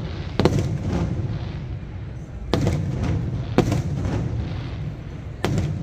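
Aerial firework shells bursting: four loud bangs, one to two seconds apart, each followed by a low rumbling echo.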